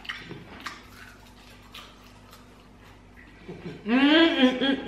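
A woman eating fried chicken with faint, scattered small clicks of chewing and handling the food. About four seconds in she gives a loud, drawn-out two-part 'mmm' hum of enjoyment.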